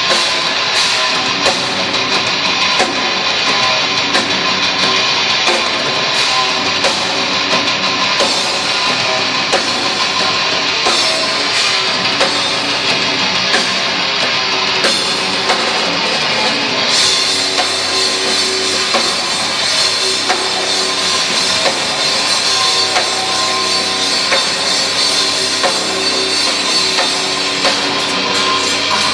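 Heavy metal band playing live: distorted electric guitars over a pounding drum kit. The sound grows brighter and fuller with more cymbal about 17 seconds in.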